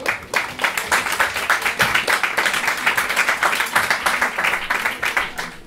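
Audience applauding, many hands clapping densely together, stopping abruptly near the end.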